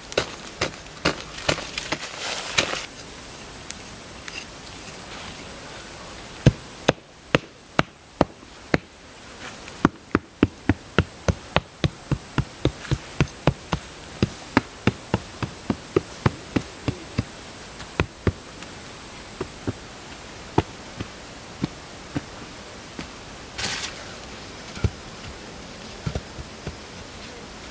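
A small hand hoe chopping into packed earth in quick, even strokes, about two a second, with scattered knocks before and after. An insect buzzes in the background.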